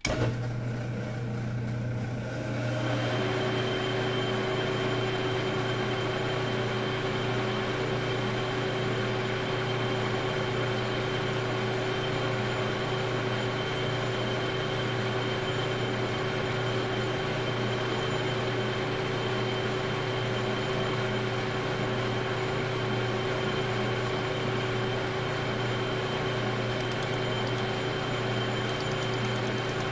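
Metal lathe switched on and running steadily, its chuck spinning a brass valve part. A low hum starts at once, and a higher steady whine joins about three seconds in.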